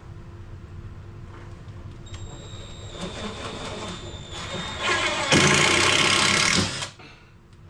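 Power drill running with a high whine, then working hard into timber for about two seconds in a loud burst that stops suddenly.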